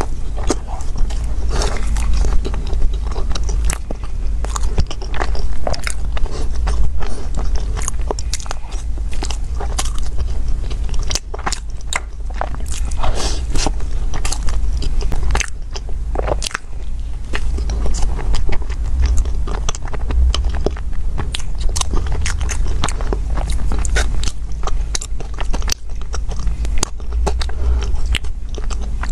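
Close-up mouth sounds of a crusty sweet bread being bitten into and chewed, full of irregular sharp crackles, over a steady low hum.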